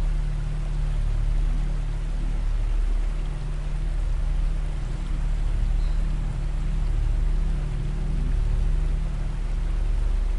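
Ambient background soundtrack: deep, steady drone tones under an even hiss, swelling and easing gently every couple of seconds.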